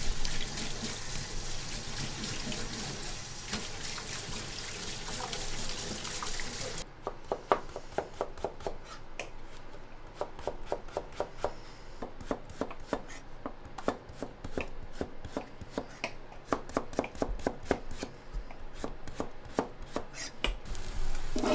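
Water running for about the first seven seconds, then a knife chopping on a cutting board in quick, irregular strokes, several a second.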